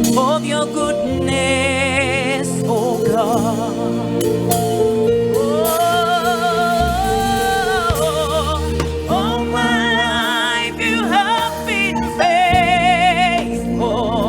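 Slow gospel worship song: a singer holds long, wavering notes with heavy vibrato and melodic runs over sustained band accompaniment.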